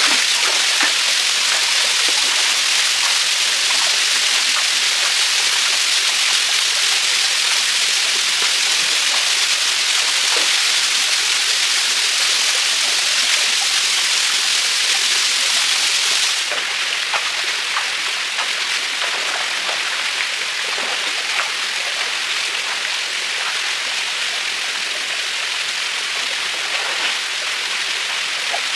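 Small waterfall pouring onto rocks into a pool: a steady rushing hiss, with occasional light splashing of water. About halfway through the rush drops a little and turns duller.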